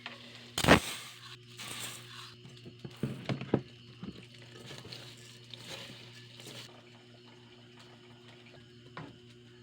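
Household handling noises over a steady low hum: a sharp knock about a second in, then rustling and a quick run of clatters and knocks around three seconds in, settling to the hum alone near the end.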